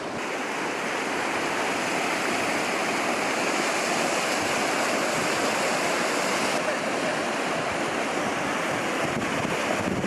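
Steady, unbroken rush of flowing water, an even hiss with little bass and no distinct events.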